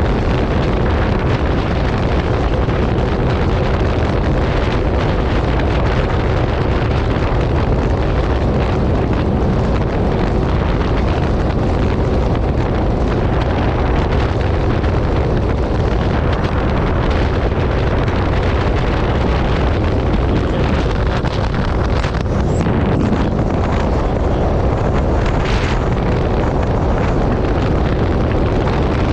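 Sea-Doo 300 personal watercraft's supercharged Rotax three-cylinder engine running at a steady cruising speed, with heavy wind noise buffeting the microphone.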